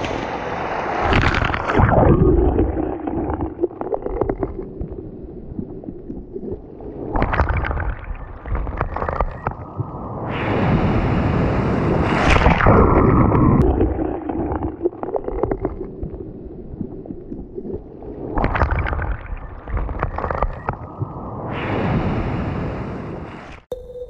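Sea waves breaking and washing in over a pebble beach, coming in about five surges a few seconds apart. The longest and loudest surge is about halfway through.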